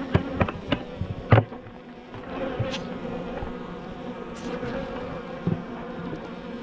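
Honeybees buzzing steadily around an opened hive, with a few sharp knocks in the first second and a half.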